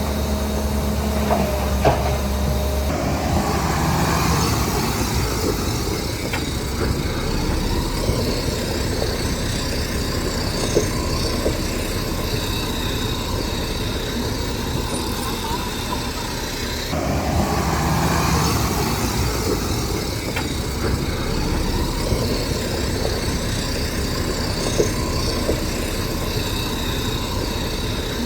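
Heavy diesel construction machinery running steadily, with scattered sharp knocks and clanks; the sound changes abruptly about three seconds in and again around the middle.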